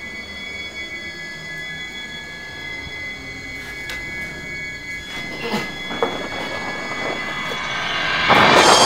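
A sustained shrill screech of several steady high tones over a noisy rumble, growing steadily louder and swelling into a loud rushing crescendo near the end.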